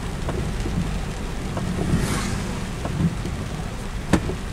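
Heavy rain drumming on a car's roof and windshield, heard from inside the cabin: scattered sharp drop ticks over a steady low rumble from the moving car. A brief hissing swell comes about two seconds in, and the loudest tap about four seconds in.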